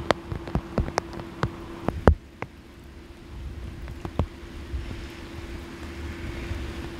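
Rain drops tapping sharply and irregularly over the first two seconds, then a steadier, quieter wash of rain, over a steady low hum.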